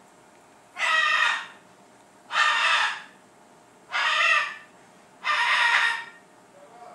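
Parrot giving four loud, harsh squawks, each under a second long, about a second and a half apart.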